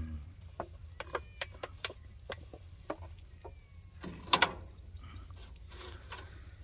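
Light clicks and knocks of a foil tray of meat being handled and set onto the metal grate of a barrel smoker, loudest as a double knock about four seconds in. A bird chirps in quick high runs in the background.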